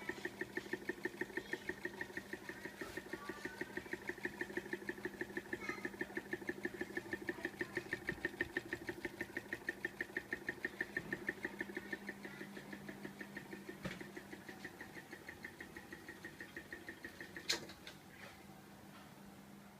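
Small mini ceiling fan running with a rapid, even pulsing hum of about seven beats a second. A sharp click comes near the end, and the pulsing stops after it.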